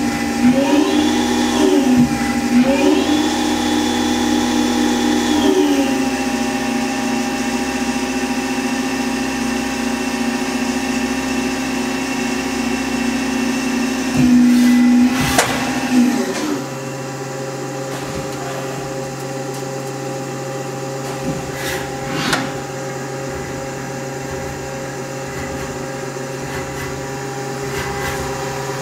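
Haas SL-20T CNC lathe running a short program: its motors whine as they speed up and slow down several times in the first few seconds, then hold a steady tone. About halfway through there are a couple of sharp knocks, and after them the machine settles to a quieter steady hum, with one more knock a few seconds later.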